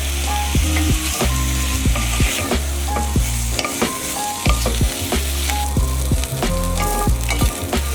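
Food sizzling in a hot pan, with background music playing underneath.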